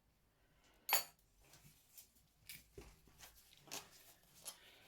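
Small metal motorcycle parts handled and set down: one sharp ringing clink about a second in, followed by quieter scattered clicks and knocks.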